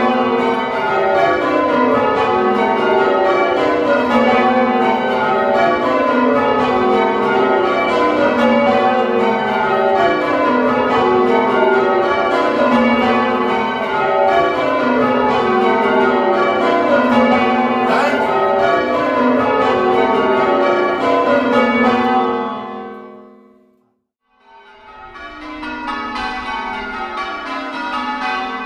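A ring of eight church bells, tenor in F♯, rung full-circle in change ringing: bell after bell strikes in repeating cascading rows, each note ringing on. About 23 seconds in the sound fades away to silence, then the bells resume, somewhat quieter.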